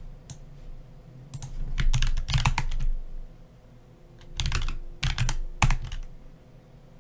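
Typing on a computer keyboard: two short bursts of keystrokes, the first about a second and a half in and the second around four and a half seconds in.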